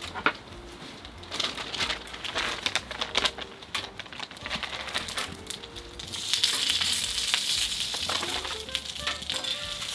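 A few seconds of clicking and rustling handling sounds, then food starts sizzling in a hot pan about six seconds in, a steady sizzle from then on.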